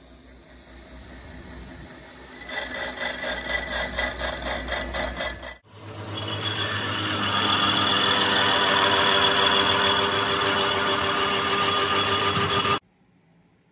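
Lathe tool-post grinder resurfacing a Fiat 480 tractor clutch plate spinning in the lathe. At first it makes a quieter, pulsing rattle. After a sudden break about halfway it becomes a loud, steady grinding with a high whine, which cuts off suddenly near the end.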